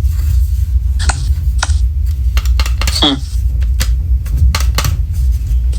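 Scattered clicks and taps of a First Alert carbon monoxide alarm being handled and turned over in the hands, over a steady low rumble.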